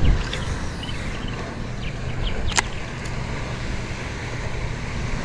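Outdoor background noise: a steady low rumble, with a few short high chirps in the first second and a single sharp click about two and a half seconds in.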